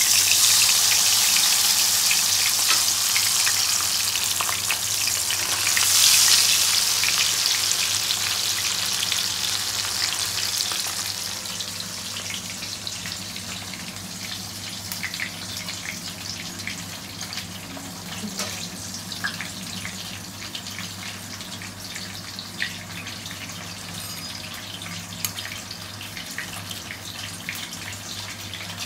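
Pomfret frying in hot oil: a loud sizzle that swells about six seconds in, then dies down after about ten seconds to a quieter sizzle with scattered crackles.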